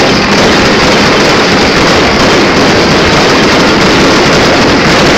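Ground fireworks fountains spraying sparks: a loud, steady rushing noise with no separate bangs.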